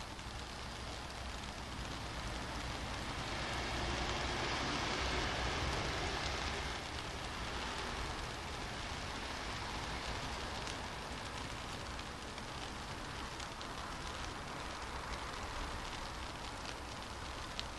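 Steady rain falling on a wet city street: an even hiss with a few faint drip ticks. The hiss swells for a few seconds about four seconds in.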